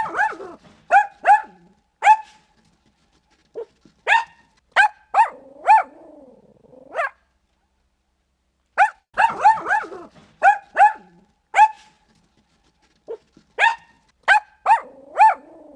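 Dachshund barking: sharp barks come in quick runs of several at a time, with short pauses between the runs. A lower drawn-out sound runs beneath some of the barks.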